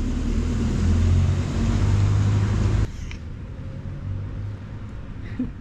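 Low rumble of a passing motor vehicle's engine, rising a little and then cut off abruptly about three seconds in, leaving quieter background.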